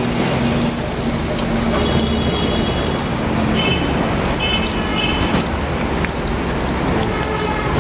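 Steady busy street noise with a low hum, and scattered light clicks of metal tongs and a spatula against a flat cooking griddle.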